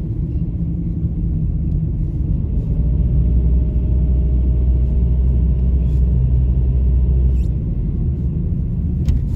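Car driving, heard from inside the cabin: a steady low rumble of engine and road noise, growing heavier for a few seconds in the middle.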